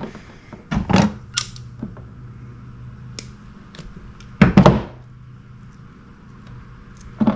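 Pliers and wires being handled while splicing wires into butt connectors: scattered sharp clicks and knocks, with a louder cluster of knocks about halfway through and another click near the end.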